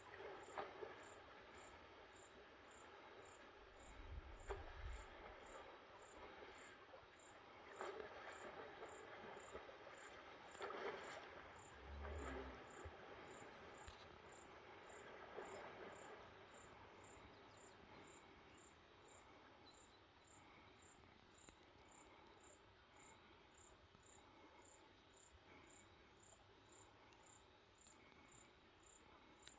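Faint insect chirping: short, high chirps repeating evenly about one and a half times a second, with a couple of faint low bumps in the first half.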